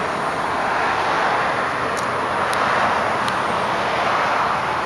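Steady outdoor road-traffic noise, with a few faint ticks a couple of seconds in.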